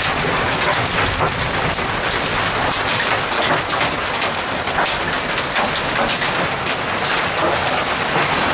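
Hail falling with heavy rain onto concrete steps and lawn: a dense, steady hiss of rain dotted with many sharp ticks of hailstones striking and bouncing.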